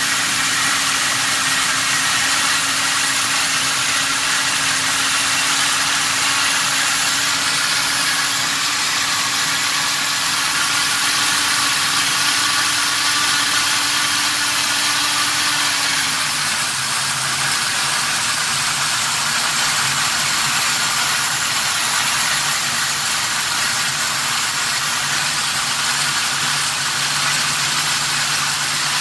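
Ford 302 V8 crate engine running steadily with no load during its camshaft break-in run, a short while after a cold start. About sixteen seconds in its speed drops a step, and it settles at a lower, steady pitch.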